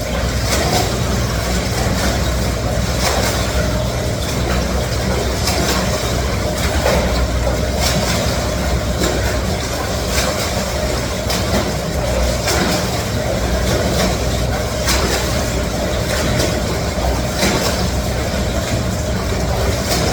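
Counter-current swim machine running at its top speed: a steady loud rush and rumble of churning water, with regular splashes of swimming strokes about once a second.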